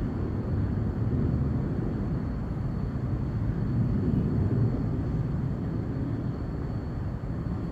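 Steady low outdoor rumble with a faint high whine over it, swelling slightly about four seconds in.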